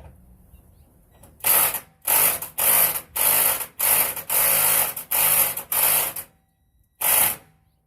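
Battery-powered impact wrench turning a bolt in short pulses: eight quick bursts in a row, then a single one after a short pause near the end.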